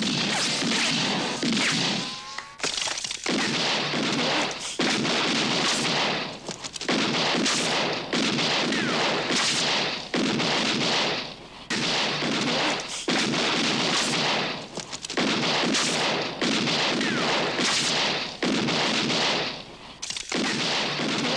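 Heavy handgun gunfire: dense volleys of shots in bursts of a second or two, with short breaks between them, about a dozen bursts in all.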